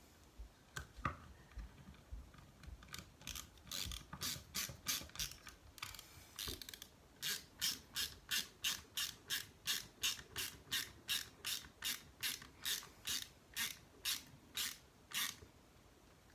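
Hand ratcheting driver clicking as screws are run into the RC crawler's chassis parts. Scattered clicks come first, then a steady run of about two to three ratchet strokes a second that stops near the end.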